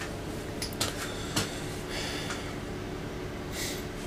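A steady low hum with a few light clicks and knocks in the first second and a half, a brief scrape about two seconds in, and a short hiss near the end.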